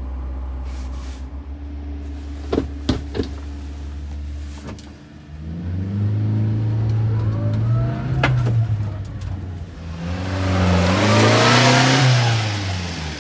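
1998 Subaru Sambar kei truck's small 660 cc four-cylinder engine idling steadily, with a few sharp clicks two to three seconds in. After about five seconds its revs climb and fall twice, and the second swell is louder and hissier.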